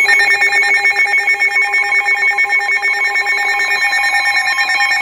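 Weather radio alarm sounding for an incoming severe thunderstorm warning: a loud, rapid ringing trill in several pitches. The lowest pitch drops out a little before the end.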